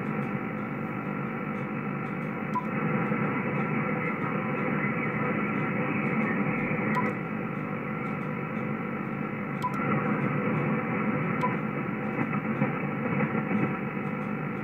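Icom IC-7300 HF transceiver on 40 m LSB, noise blanker off, playing heavy interference through its speaker: a steady, nasty rasping noise filling the receive passband, with faint regular clicks. The owner thinks it may come from central-heating timers nearby but is not sure.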